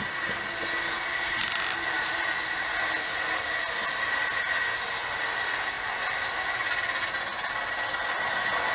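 Super Farm class diesel pulling tractor running at full throttle under heavy load as it drags a weight-transfer sled, a loud steady engine sound with a constant high whine over it.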